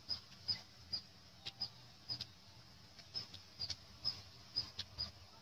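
Short high-pitched chirps repeating irregularly, about two a second, from a small bird calling, with a few faint clicks between them.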